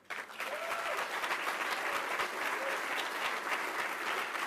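Audience applauding steadily, the clapping starting suddenly.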